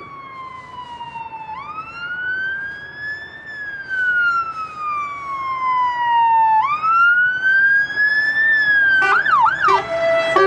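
Fire engine siren heard from inside a lorry cab as the fire engine overtakes, a slow rising and falling wail of about five seconds per cycle. About nine seconds in it switches briefly to a rapid warble, then goes back to the wail.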